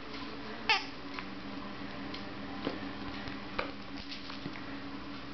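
Two West Highland terriers at play over a present: one short squeal that falls in pitch less than a second in, then soft scuffling with a few light taps.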